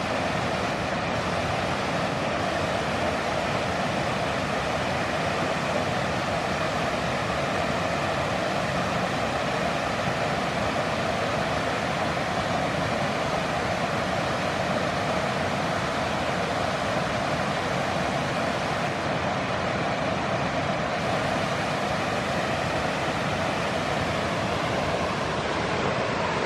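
Creek waterfall pouring steadily, an even, unbroken rush of falling water.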